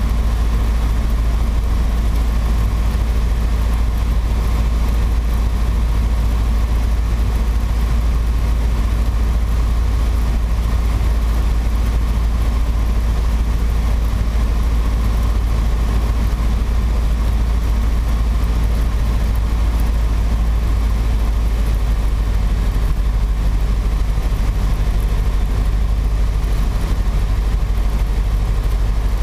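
Piper PA-28-140 Cherokee's four-cylinder Lycoming engine and propeller running steadily in flight, heard from inside the cabin.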